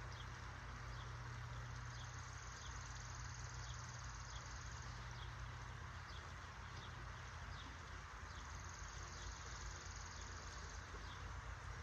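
Creekside ambience: the steady rush of flowing creek water, with a high insect buzz that comes in two spells, one near the start and one about two-thirds through, and short chirps repeating about every half second.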